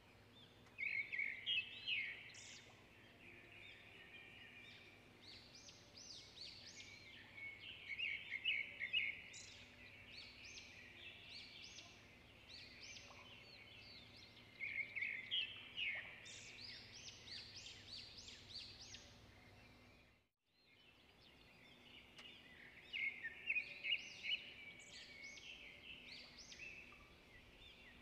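Small birds chirping in repeated bursts of quick, high calls every few seconds, over a faint steady hum. The sound cuts out briefly about two-thirds of the way through.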